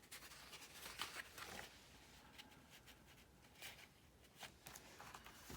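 Faint rustling and soft taps of paper sheets being handled and laid into a stack, a few scattered brief rustles over quiet room tone.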